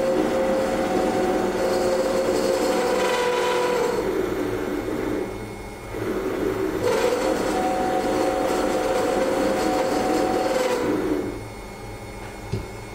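Lathe running at about 1300 rpm while a number 4 center drill bores a center hole into the end of a 3/8-inch mild steel rod, fed by the tailstock handwheel. The drilling gives a steady pitched cutting tone in two long stretches, with a short let-up about five seconds in. It drops away about eleven seconds in, leaving a quieter hum and a couple of light clicks.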